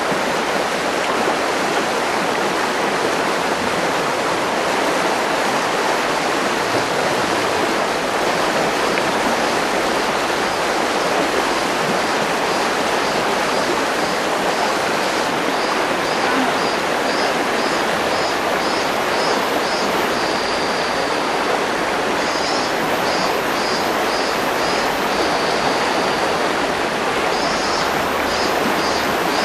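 Steady rushing of a mountain river flowing over rocks.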